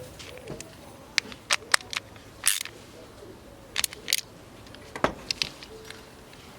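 A series of irregular sharp clicks and knocks, about a dozen over several seconds, with the loudest around the middle.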